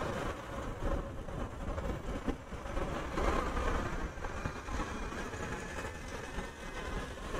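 Motorcycle riding through city traffic, heard from the rider's seat: a steady mix of engine, tyre and traffic noise with a deep rumble.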